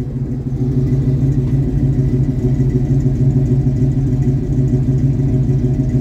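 A 1986 Chevrolet K10's 350 small-block V8 with headers idling steadily through its exhaust. The idle is smoother than its usual choppy idle, which the owner puts down to the choke still being on a little.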